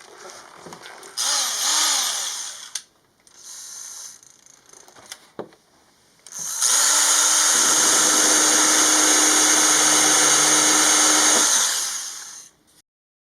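Electric drill spinning a carbide burr against the holes in a Honda Cub 90 leg shield: two short bursts that speed up and slow down, then one long steady run of about five seconds that winds down and stops near the end.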